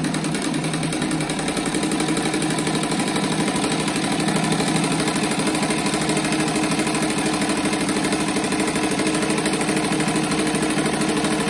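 Sewing machine running steadily at speed, a fast, even stream of needle strokes, stitching a fabric binding strip through the layers of a quilted rug's edge.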